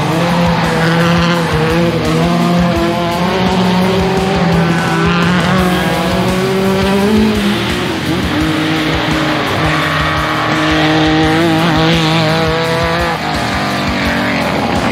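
Rally car engines running hard around a rallycross circuit, held at high revs with the pitch rising and falling through gear changes and corners.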